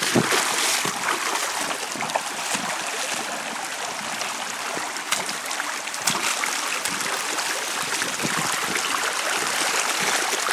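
A shallow creek flowing, a steady rushing and trickling of water.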